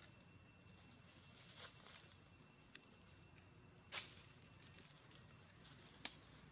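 Near-silent forest quiet broken by a few faint crackles and snaps of dry leaf litter. The loudest, a brief crunch, comes about four seconds in, with sharp clicks shortly before and after it.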